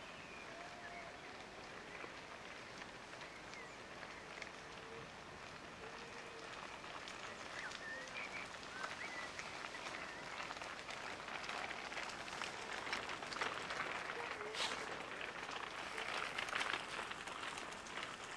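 Gravel crunching under pushchair wheels and footsteps on a dirt-and-gravel track, a crackle that grows louder as they come closer, with faint bird chirps.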